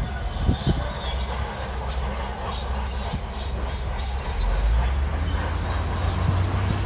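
Shantui bulldozer working: its diesel engine runs under load, getting louder about two-thirds of the way through, while the steel crawler tracks clank and squeal.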